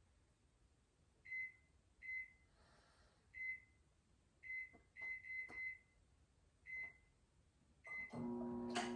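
Microwave oven keypad beeping as its buttons are pressed: nine short, high beeps at uneven intervals, several in quick succession in the middle. Near the end the microwave starts up with a steady hum, set to heat the food longer.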